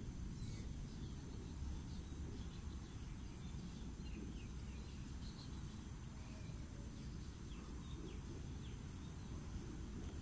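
Outdoor ambience: a steady low rumble with many faint, short bird chirps scattered throughout.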